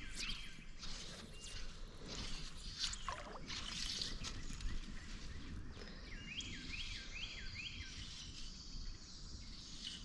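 Creek water sloshing and splashing, with short uneven splashes, while a bird repeats a short call four or five times in quick succession about six seconds in.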